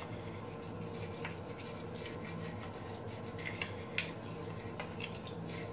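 Small toothbrush cleaning brush scrubbing the inside of a bathroom floor drain, with faint scratching strokes that grow a little stronger about four seconds in. A steady low hum runs underneath.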